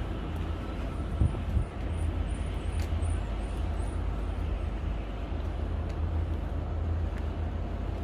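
Wind buffeting a phone's microphone in the open air, a steady low rumble, with a short knock about a second in.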